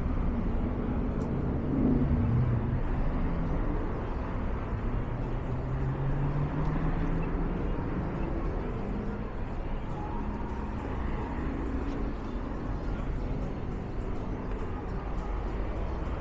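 City street traffic: cars running and passing steadily, with one engine rising in pitch as a vehicle pulls away a few seconds in.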